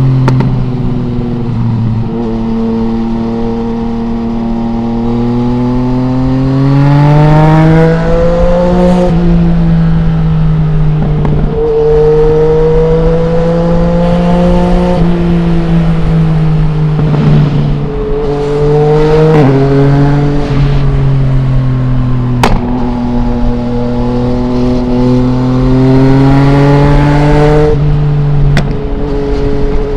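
2020 Yamaha MT-09's three-cylinder engine through an Akrapovic full exhaust system with no dB killer, being ridden: it pulls up in pitch under acceleration, drops at each gear change and holds steadier between pulls. A few sharp cracks come later on.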